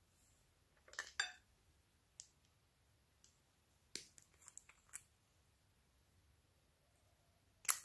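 Small glitter bottles with plastic screw caps being handled and opened: a short squeaky click about a second in, a few light clicks and taps around the middle, and a sharper click near the end.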